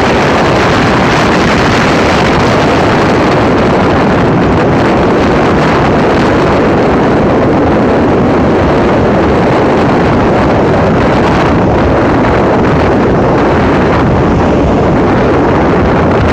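Loud, steady wind buffeting the phone's microphone, mixed with the wash of breaking surf.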